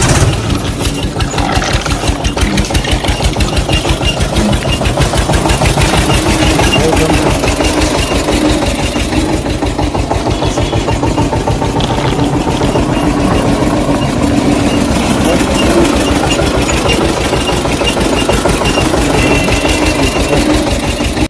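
A small engine running with a steady, rapid chugging beat, the sound of the miniature DIY tractor being driven.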